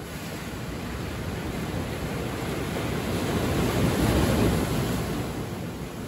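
Ocean surf: a wave breaking and washing in among shore rocks, swelling to a peak about four seconds in and then falling away.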